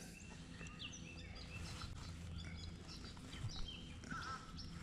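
Faint bird calls: short, high chirps scattered through, over a low steady background hum.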